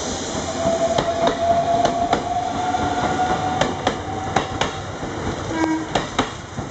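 A JR Central 313 series electric train pulls away, its motors whining with a slowly rising pitch as it gathers speed. Its wheels click over the rail joints in close pairs.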